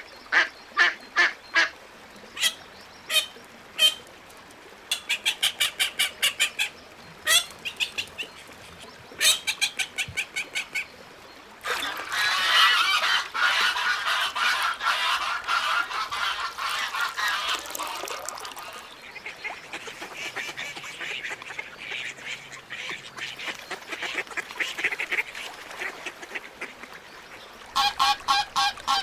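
Ducks quacking. For the first ten seconds or so there are separate short calls in quick series. From about twelve seconds in, many birds call over one another in a dense chorus, which thins out after a few seconds. Near the end comes a fast run of quacks.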